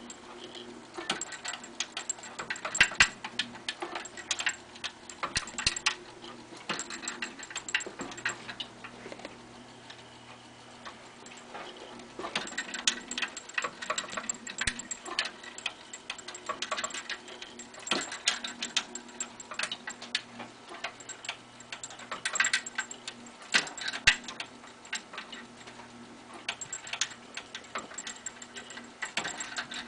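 Pabst train bar sign running, its mechanism ticking and clicking in irregular clusters over a steady low electrical hum.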